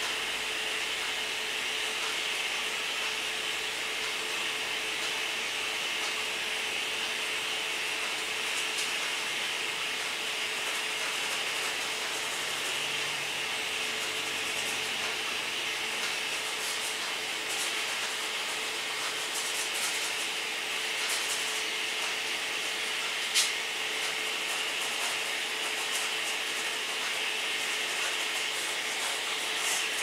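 Paintbrush strokes rubbing faintly on canvas over a steady hiss with a low hum, with one sharp click about three-quarters of the way through.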